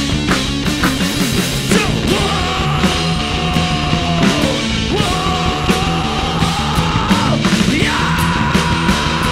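Rock band playing live, loud and full. After about two seconds, long held notes that slide up into pitch ride over the band, three times in a row.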